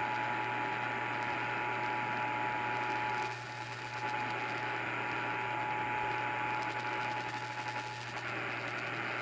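Emergency Alert System two-tone attention signal heard over AM radio: a steady, shrill two-note tone under radio static and a low hum. The reception fades briefly about three seconds in.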